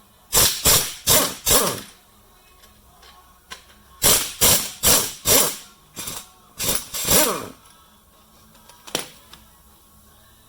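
Power impact wrench run in short bursts to undo bolts on a Farmall Cub engine's bottom end as the main bearing caps come off. There are four quick bursts, then four more, then three, then a single one, each with a falling whine.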